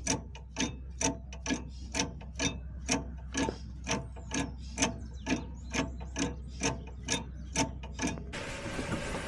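Sharp, evenly spaced knocks, about two a second, played as an example of the hollow knock of worn sway bar links or sway bar bushings. About eight seconds in it cuts to a steady rumble of road noise.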